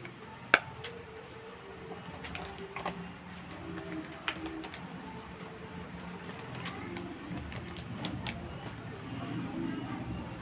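Scattered light clicks and taps of handling, the sharpest about half a second in, over a low steady background hum.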